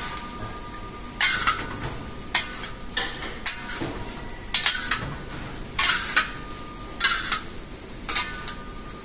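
Steel spatula scraping and clanking against a large wok as a heap of shredded cabbage and carrot is tossed and mixed, with a stroke about once a second, sometimes two in quick succession.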